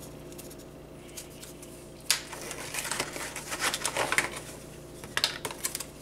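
Light clicks and rustling as small tool parts and plastic packaging are handled on a tabletop, scattered from about two seconds in, over a steady low hum.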